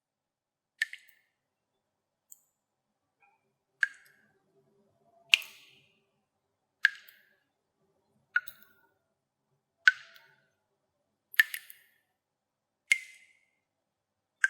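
Single water drops falling into water, each a short, clear plink with a brief tail, about one every second and a half.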